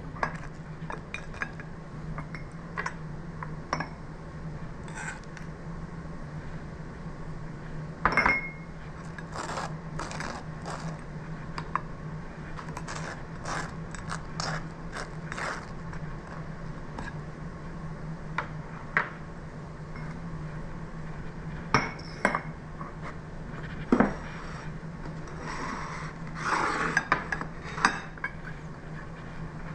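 A table knife scraping butter across toast on a ceramic plate, with scattered clicks and clinks of knife and plates and a few louder knocks, over a steady low hum.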